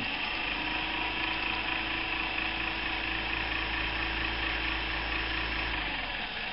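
Electric RC airplane motor spinning a 9x5 slow-fly propeller at a steady speed, then cutting off suddenly a little before the end.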